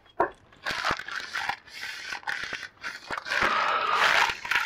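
Packaging on a new window blind being handled and unwrapped: plastic wrap and cardboard crinkling, scraping and tearing in a string of short bursts, with a longer stretch of rustling about three seconds in.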